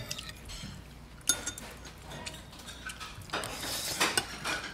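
A metal spoon clinking now and then against a ceramic plate, with a longer scraping stretch near the end.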